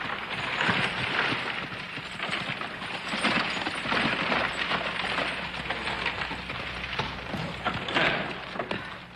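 Horse-drawn wagon rolling in over a dirt yard with horses walking alongside, hooves clopping and the wagon rattling in an irregular crackle.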